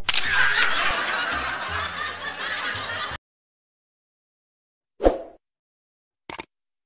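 People laughing and chuckling for about three seconds, cut off abruptly into silence. About five seconds in comes a short sound-effect burst, then a single mouse-style click near the end.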